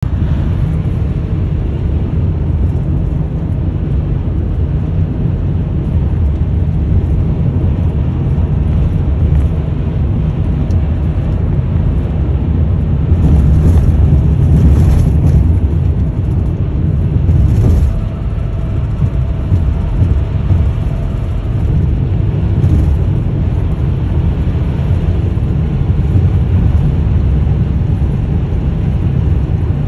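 Road noise inside a car cruising at highway speed: a steady low rumble of tyres and engine, louder for a few seconds around the middle.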